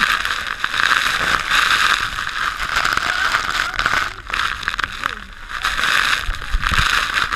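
Dense spray and falling water from Iguazu Falls pouring over an open tour boat: a loud, steady rush of water with crackling drops hitting close to the microphone. The rush dips briefly twice, a little past the middle.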